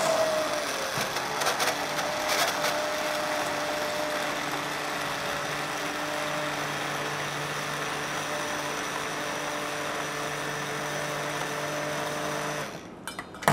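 Electric hand blender running in a saucepan of lentil soup, pureeing it: a steady motor whine over the churning of the liquid, switched off near the end.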